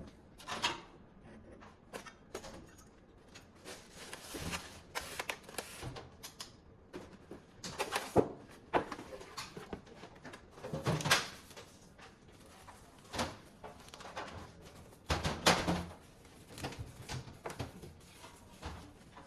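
Unpacking and handling noise: irregular clicks and rustles of a cardboard box being opened and a monitor pulled from its plastic bag and foam packing, with a few louder knocks as parts are handled and set down.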